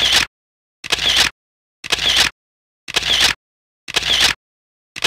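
Camera shutter clicks, a sound effect repeated six times at about one per second, with dead silence between them.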